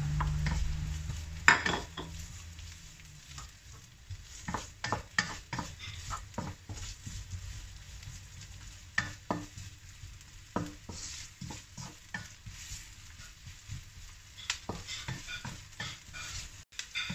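Chopped onion and garlic frying in oil in a non-stick wok, stirred with a wooden spatula: a light sizzle under frequent scraping clicks of the spatula against the pan. A sharp knock about a second and a half in is the loudest sound.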